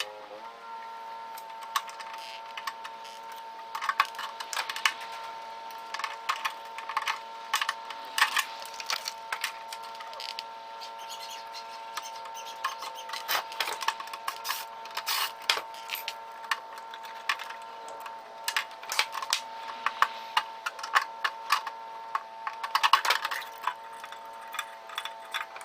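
Repeated clicks and clatter of tools and metal parts being handled while a microwave oven is taken apart, over a steady droning tone.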